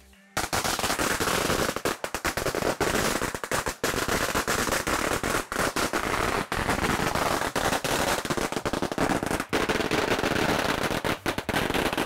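A long string of Chinese firecrackers going off, starting about half a second in and firing as a rapid, unbroken run of sharp bangs; painfully loud.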